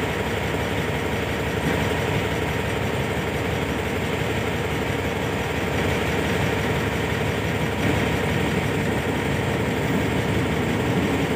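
Diesel-electric locomotive running light, its engine drumming steadily as it rolls slowly toward the platform, growing a little louder near the end as it draws close.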